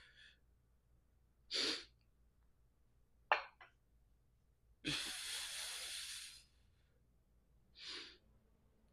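A man's forceful breaths during dumbbell bench press reps: a short breath out, a brief sharp sound, then a long breath out of about a second and a half, and another short one near the end.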